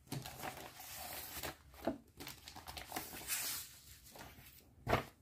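Clear plastic wrapper of a cross-stitch kit crinkling and rustling as it is opened and the kit slid out, with a single thump shortly before the end.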